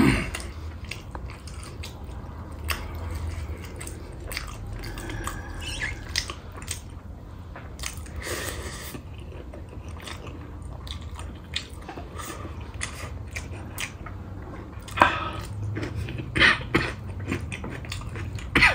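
A person chewing a mouthful of rice and curry close to the microphone, with frequent small mouth clicks. There are a few sharper, louder clicks in the last few seconds.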